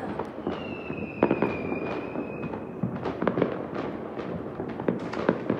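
New Year's Eve fireworks and firecrackers going off all around, with many irregular bangs and cracks. Near the start a whistling firework sounds one high whistle, falling slightly in pitch over about two seconds.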